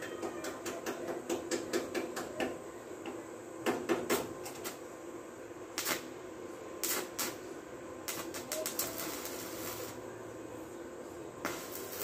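Electric stick (arc) welder tacking a new steel floor panel onto a truck cab: the arc catches in short crackling spurts, a quick run of them in the first couple of seconds, then clusters about four, six, seven and eight to nine seconds in, and a longer spell near the end, over a steady low hum.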